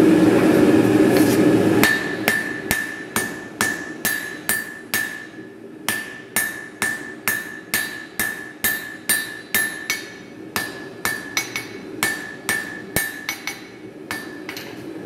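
Hand hammer striking a white-hot axe head on a steel anvil in a steady rhythm, about two blows a second, each blow with a bright anvil ring, as the forge weld is set; the blows pause briefly about five seconds in. The first two seconds hold a loud steady roar from the open gas forge.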